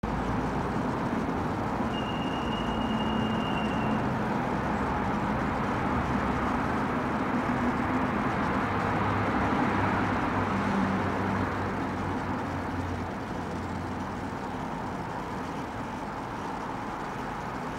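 Steady background road-traffic noise that swells to a peak about ten seconds in as a vehicle passes, then eases off. A brief high steady tone sounds about two seconds in.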